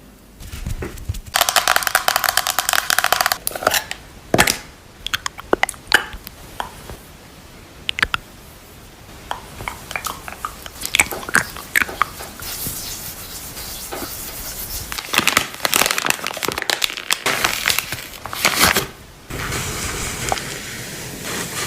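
Close-miked ASMR handling sounds of skincare products: bursts of crinkling and crackling with many sharp taps and clicks, turning to a steadier rubbing near the end.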